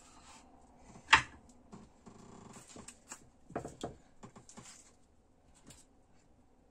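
Food being arranged by hand on a parchment-lined baking tray: one sharp click about a second in, then light rustling and small knocks, with a few short low vocal sounds in between.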